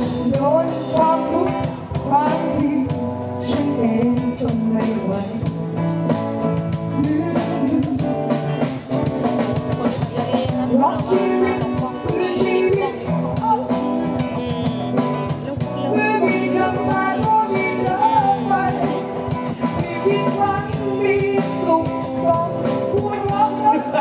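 Live band music with drum kit and guitar, a singer singing into a microphone over it.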